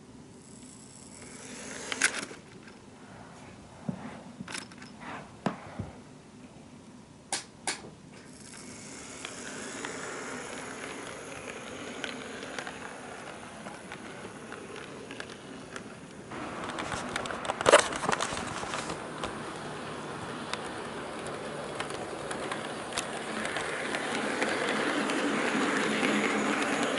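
HO-scale model train: several sharp clicks as the EF81 electric locomotive's coupler meets the passenger coach's, then the coupled train running along the track with a steady rolling noise from its wheels on the rails that grows louder near the end. One loud sharp click about two-thirds through, as wheels cross a rail joint or turnout.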